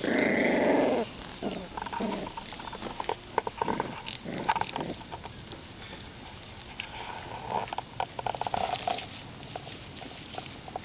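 26-day-old boxer puppies play-fighting, growling: a loud growl lasting about a second at the start, a softer stretch of growling later on, with scuffling and small clicks in between.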